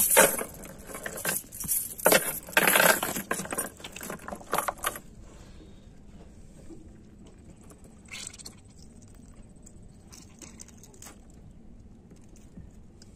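Metal chain rattling and clinking as it is dropped and handled on a wooden boat's bamboo floor, in several loud bursts over the first five seconds, then only a few faint clicks.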